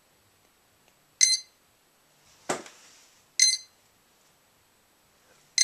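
Brushless motor ESCs beeping through the motors: a short, high beep about every two seconds, repeating without end. The motors won't arm or spool up, and the uploader traced the fault to ESC throttle calibration with the radio. A single knock sounds about halfway through.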